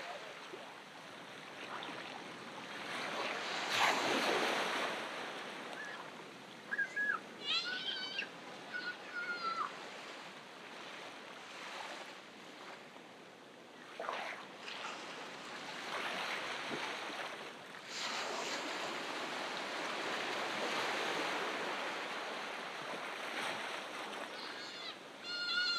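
Ocean surf breaking and washing up the beach, swelling about three seconds in and again in the second half. A few short high-pitched calls come through about a third of the way in and again near the end.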